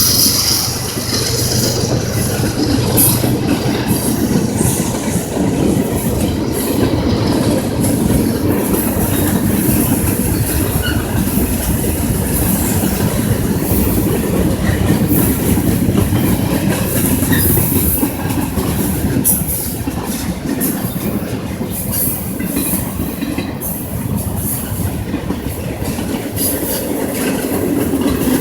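Union Pacific manifest freight train's cars rolling past at speed: a steady rumble of steel wheels on the rails.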